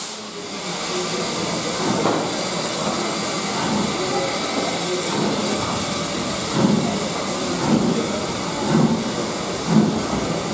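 L&YR Aspinall class 27 0-6-0 steam locomotive No. 12322 pulling away with its train, with a steady hiss of steam. Its exhaust chuffs begin about two seconds in, roughly one a second, and quicken as it gathers speed.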